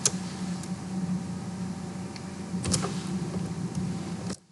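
A few computer keyboard keystrokes over a steady low hum and hiss, which cuts off suddenly near the end.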